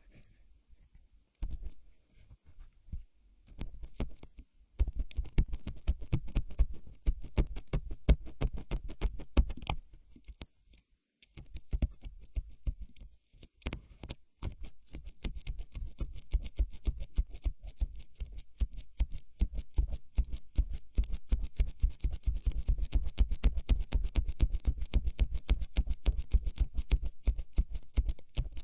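ASMR trigger sounds close to the microphone: fast, dense tapping and scratching, many strikes a second, each with a low thud, in stretches broken by short pauses.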